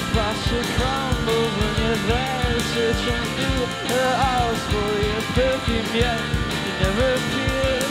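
Live indie rock band playing with a full drum kit hitting steadily, cymbals, electric guitar and bass, and a male voice singing a melody over them.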